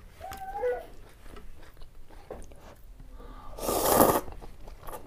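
Noodles from a bowl of chicken thukpa slurped in one long, loud slurp about three and a half seconds in, with faint small clicks before it.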